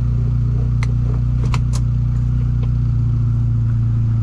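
Supercharged 1.6-litre four-cylinder engine of a Mini Cooper S R53 idling steadily, with a few light clicks about a second in.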